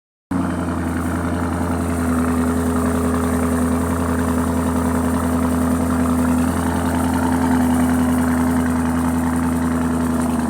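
Lamborghini Urus twin-turbo V8 idling steadily, with an even, unchanging engine note.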